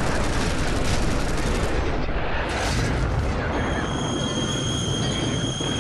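Dense battle noise of rapid gunfire and rumbling blasts. A steady high whine joins in about halfway through.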